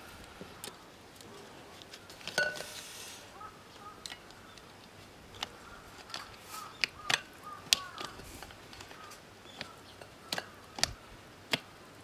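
Steel tyre levers clinking and knocking against a spoked motorcycle wheel's rim and spokes while a knobby tyre's bead is levered over the rim. The knocks come as scattered sharp clicks, several close together in the middle.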